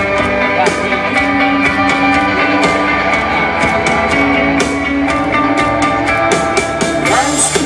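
Rock band playing live, an instrumental passage without vocals: guitars and bass holding notes over a steady drum beat.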